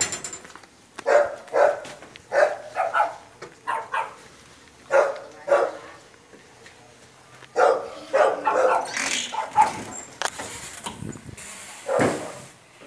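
A dog barking repeatedly, in short barks that come in clusters.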